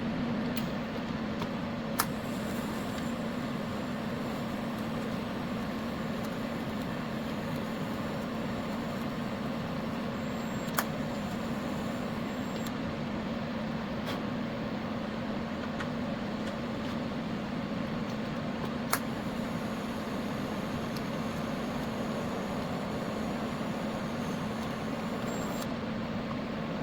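TIG welding on a snowblower crack: a steady arc hiss over the welding machine's hum, with a few sharp clicks along the way.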